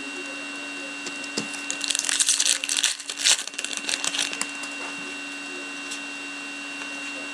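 A foil trading-card pack being torn open and crinkled by hand: a quick run of crackling rustles lasting about two and a half seconds.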